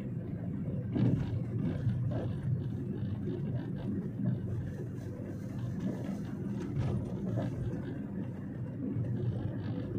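Steady low rumble of a car's engine and tyres, heard from inside the cabin while driving, with a few short knocks, about one and two seconds in and again near seven seconds.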